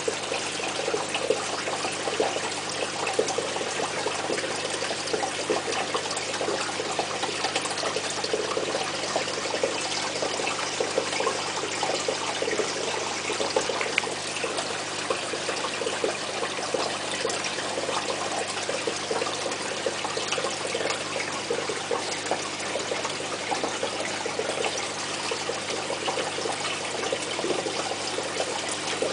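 Aquarium filter outflow trickling and splashing steadily into the tank water.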